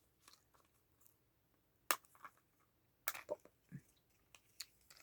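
A few small, scattered clicks and crackles of a plastic gachapon capsule and its contents being handled and opened, the sharpest about two seconds in.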